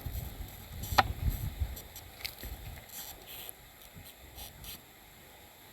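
Strong wind buffeting the microphone in low gusts, strongest in the first couple of seconds, with one sharp click about a second in.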